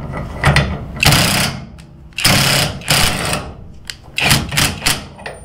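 Hercules HCB84B 20V brushless 1/2-inch impact wrench set to speed 2, hammering on a trailer hitch ball nut through a 29 mm socket. It runs in about five short bursts with brief pauses between.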